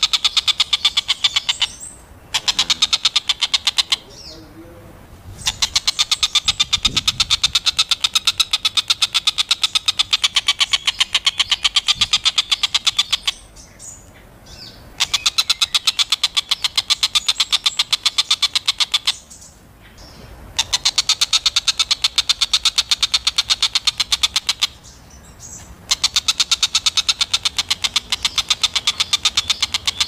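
Oriental dollarbird giving its rapid chattering call, about ten notes a second, in bouts of several seconds broken by short pauses.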